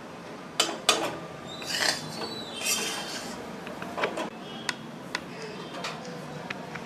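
Metal spatula knocking and scraping against a metal kadhai while stirring a dry, crumbly flour filling: two sharp knocks in the first second, scrapes around two and three seconds in, then a few light clicks.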